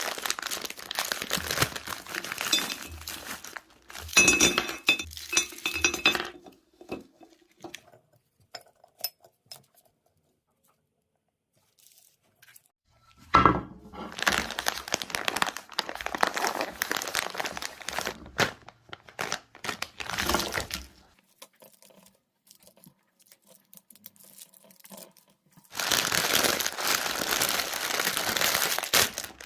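Crinkly plastic food bags being handled and torn open, in several crackling bouts separated by quieter pauses with small clicks.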